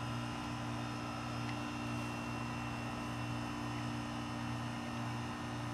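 A steady low mechanical hum over an even hiss, unchanging, with no distinct events.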